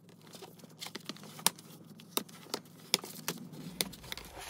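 Sheets of tea- and coffee-aged paper handled, folded and pressed flat by hand: faint paper rustling broken by several sharp paper snaps and taps.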